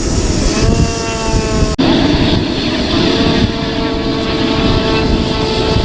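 RC model aircraft engine running during a flying display, its pitch falling slightly over the first two seconds and then holding steady. A thin high whine sits above it, and the sound cuts out briefly a little under two seconds in.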